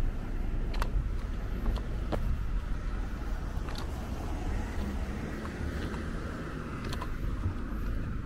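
Steady low outdoor rumble with a few faint ticks scattered through it.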